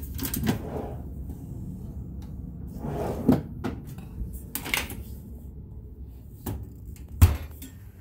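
Furrion RV oven door being opened and handled: a series of metal-and-glass clunks and rattles, the sharpest a little before the end.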